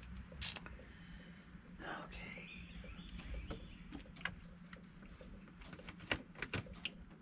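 Scattered light clicks and knocks of parts being handled and pulled out while a car battery's mounting is taken apart, the sharpest click about half a second in.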